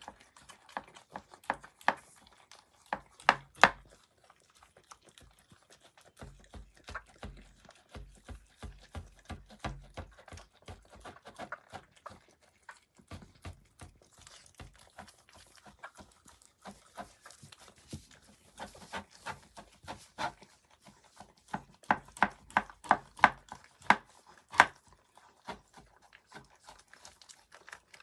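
Mini dachshund puppy with hiccups after gulping its food: a long run of short, sharp clicks at irregular spacing, some coming in quick clusters.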